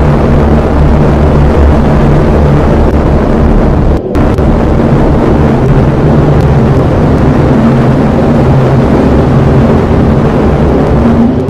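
Loud, dense ambient drone: a rumbling wash over sustained low notes that shift every few seconds. It drops out for a moment about four seconds in.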